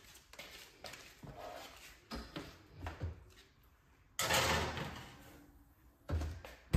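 A few light knocks as an electric oven's door is opened, then a metal baking sheet sliding onto the wire oven rack with a scraping clatter about four seconds in. The oven door is swung shut with a thump and a click near the end.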